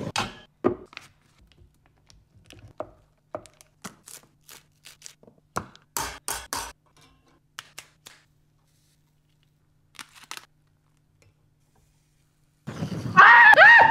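Scallop shells being set down and shifted on a small metal wire grill rack: scattered light clicks and taps, with three sharper clacks about six seconds in. Near the end a loud, repeated cackling laugh breaks in.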